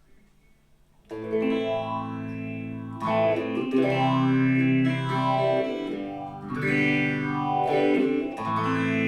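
Electric guitar, an Epiphone SG Special with P90 pickups, playing chords through a phaser pedal, starting about a second in. The phaser gives the ringing chords a slow sweeping swirl.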